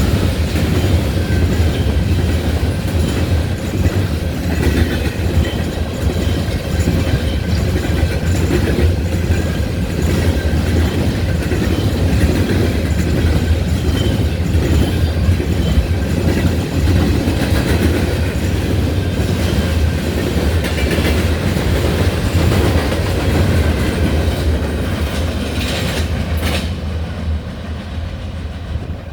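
Empty coal hopper cars of a freight train rolling past, with wheels clacking over the rail joints, a steady low rumble, rattling and a faint wheel squeal now and then. The sound dies down near the end.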